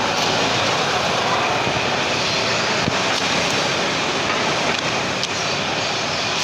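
Steady street traffic noise: cars, vans and trucks passing on a busy city road, an even rush of engine and tyre sound.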